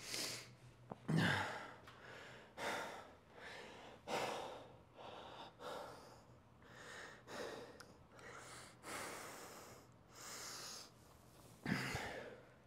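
A man breathing hard, catching his breath after an all-out set: deep breaths roughly one every second or so, with a louder, partly voiced gasp about a second in and again near the end.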